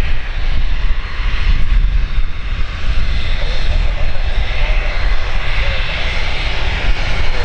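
Business jet's engines running steadily, with strong wind buffeting the microphone.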